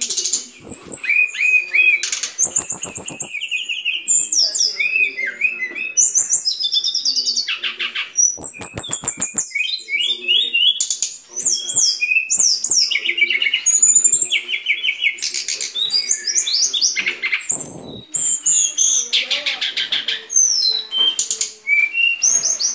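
Brown-chested jungle flycatcher singing a rapid, varied song of high chirps, whistled notes and fast rattling trills, with two long clicking rattles, one a few seconds in and one around the middle.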